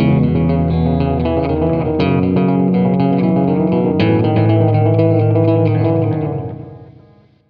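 Background rock music led by electric guitar and bass, fading out near the end.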